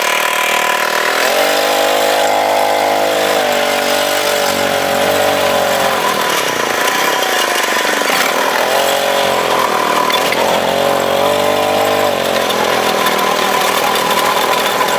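Snapper riding mower's small gasoline engine running under way, its speed rising about a second in, dropping midway, then picking up and easing off again twice.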